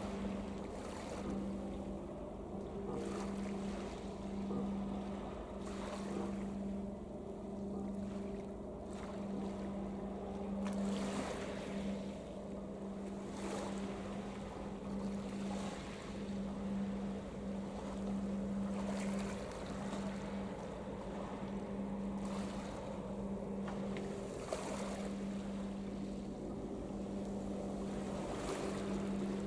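Low steady drone of ship engines across the water, with gusts of wind on the microphone swelling every couple of seconds.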